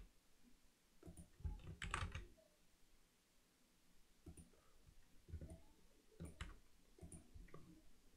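Faint clicks of a computer keyboard and mouse, coming in short clusters several times.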